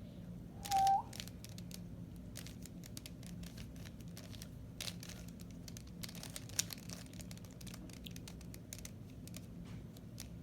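Rubik's Cube being turned by hand: a run of quick, irregular plastic clicks and rattles as its layers twist. A brief high tone sounds about a second in.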